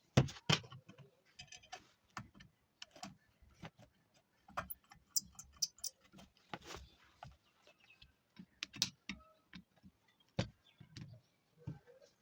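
Scattered light clicks, taps and small clinks of tools and small metal parts being handled, coming at irregular intervals, while an electric dry iron is being worked on.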